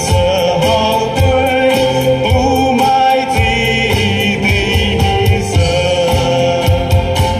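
Live band music: several voices singing a song together over acoustic guitar and keyboards, with a steady beat.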